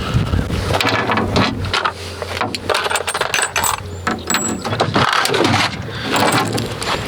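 Irregular metallic clinks and knocks over the low steady hum of a running machine engine.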